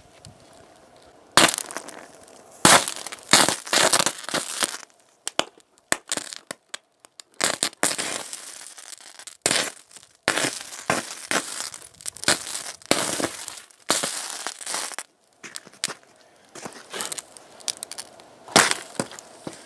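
Irregular crackling, sputtering bursts of a high-current DC arc as a copper rod fed by four lead-acid batteries in series is pressed onto a laptop, throwing sparks and burning through its metal case.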